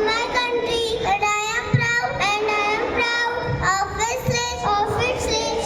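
Young children singing, with long held, wavering notes.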